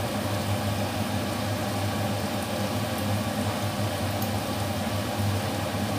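Steady low hum and hiss of a kitchen appliance running, with a few faint ticks.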